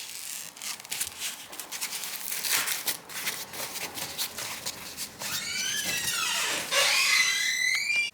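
Cloth rubbing and scraping across the tablet's display glass, turning into high squeaks that slide up and down in pitch about five seconds in and grow loudest near the end, then stop abruptly.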